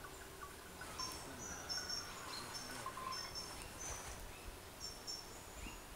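Faint outdoor ambience with a dozen or so short, high-pitched chirps, irregularly spaced, from small wild creatures.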